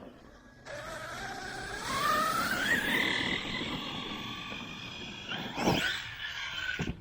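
Arrma Kraton 6S V5 BLX RC truck's brushless motor and drivetrain whining as it accelerates, the pitch rising for about two seconds, then holding and easing off slightly. A single sharp thump comes near the end.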